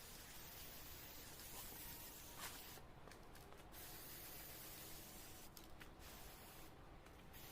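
Near silence: a faint steady hiss with a single light click about two and a half seconds in.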